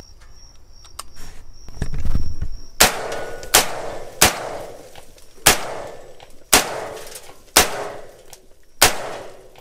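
AR-15 rifle in .223 fired semi-automatically: seven shots at uneven spacing, roughly one a second, starting about three seconds in, each with a short fading echo.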